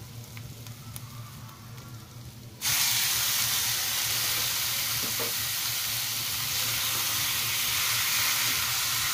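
Raw chicken pieces dropped into a hot wok of frying onion, garlic, ginger and green chilies. There is quiet frying at first, then a loud sizzle starts suddenly about two and a half seconds in and holds steady.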